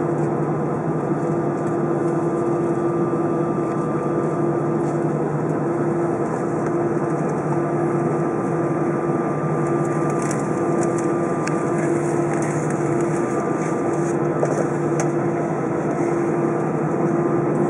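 Airbus A320's engines idling, heard inside the passenger cabin: a steady hum with a few held tones.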